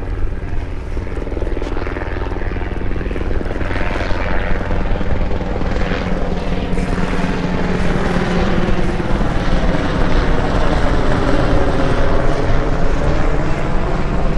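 Wind buffeting the microphone with a heavy low rumble, over a steady motor drone that grows slightly louder after the middle.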